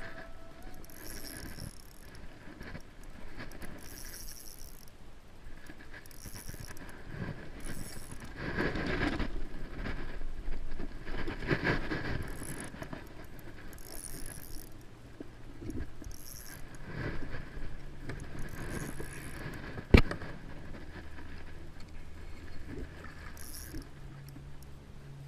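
Spinning reel being cranked and fishing gear handled in a kayak while a peacock bass is fought and netted: irregular mechanical whirring and clicking, louder around nine to twelve seconds in, with one sharp knock about twenty seconds in.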